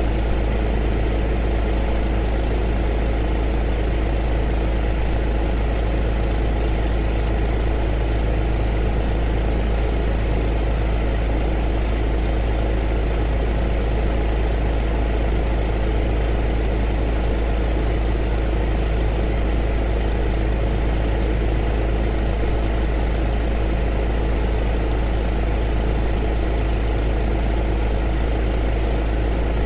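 A heater running steadily: an even hiss over a strong low hum, with a few faint steady tones, unchanging.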